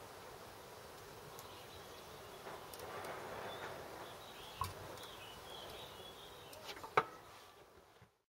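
Faint outdoor background with a few light clicks from hands working at the SU carburettor jets and dampers, the sharpest about seven seconds in, and some faint high chirps in the middle. The sound fades out to silence at the end.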